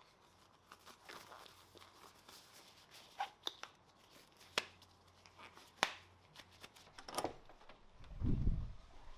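Scattered light clicks and taps of objects being handled, then a low dull thump about eight seconds in.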